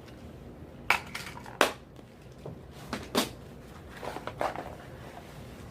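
Plastic tackle boxes being handled: a few sharp clicks and clatters, about five, with a light rattle of small hooks and tackle inside.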